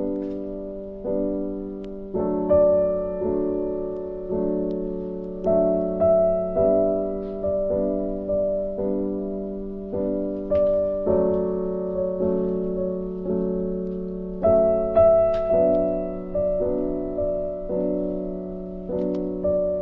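Slow, gentle piano music: single notes and chords struck about once a second, each ringing out and fading, over a held low note.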